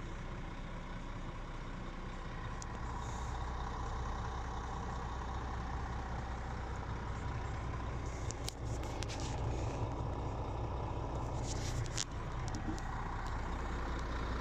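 Scania R450's 13-litre straight-six diesel idling steadily, heard from inside the cab. A few light clicks come in the second half.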